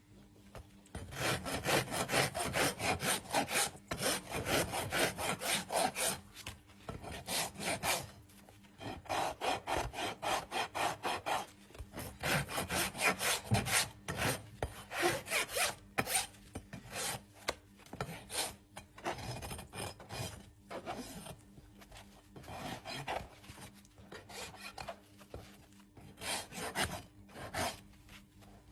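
Farrier's rasp scraping across a horse's hoof in rapid repeated strokes, in runs of several seconds broken by short pauses.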